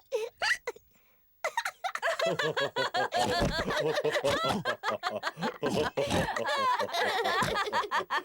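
Several cartoon character voices laughing together, overlapping, after a couple of short single voice sounds in the first second.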